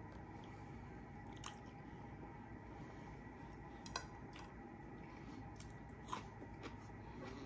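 Close-miked chewing and mouth sounds of a man eating, with a few sharp clicks of utensils or teeth about a second and a half, four and six seconds in. A faint steady hum sits underneath.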